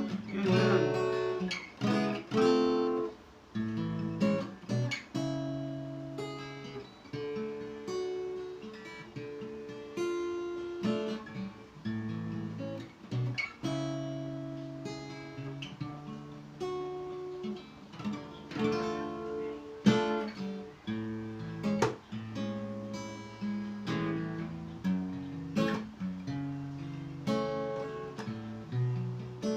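D&D Django Jr. mahogany acoustic guitar being played: chords strummed and picked, each left to ring, changing every second or two.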